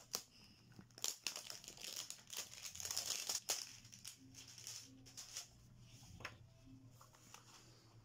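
Packaging crinkling and rustling, with light clicks and taps, as a small jewellery box is unwrapped and opened; busiest in the first half, quieter after.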